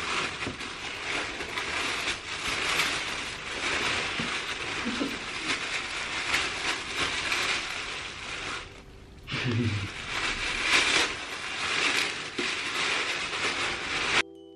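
Red tissue paper crinkling and rustling continuously as a gift is pulled out of it, with a brief pause a little past the middle and a short vocal sound right after. The rustling cuts off suddenly near the end.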